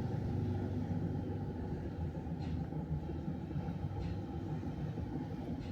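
Steady low mechanical rumble with a few faint ticks.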